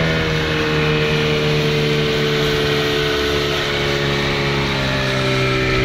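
A small boat's outboard motor running steadily under way, its pitch easing down slightly, over the rushing of the wake.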